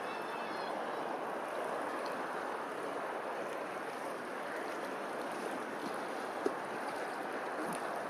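Steady rushing noise like flowing water, with a faint short chirp at the very start and a single click about six and a half seconds in.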